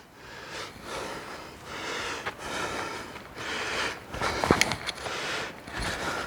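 A person breathing hard through the nose in repeated noisy breaths while scrambling down a steep slope, with a sharp knock about four and a half seconds in.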